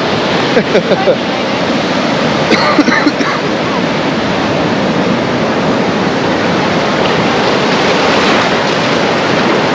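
Ocean surf breaking and washing up a sandy beach, a steady rushing noise.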